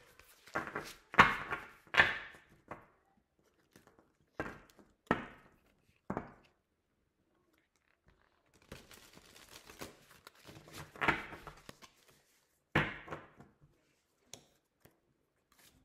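Tarot cards being handled and shuffled: a run of short, sharp card slaps and flicks, a pause of about two seconds, then a longer rustle of shuffling with a couple more slaps near the end.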